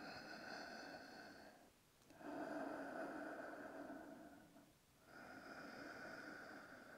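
A person breathing slowly into the belly: three faint, long breaths of about two seconds each, with short pauses between them.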